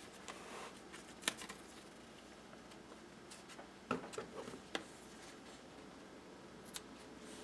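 Washi tape being laid and smoothed onto a paper journal page: quiet, scattered clicks and paper rustles, with a short cluster of them about four seconds in. Near the end, a single small click as scissors snip the tape from its roll.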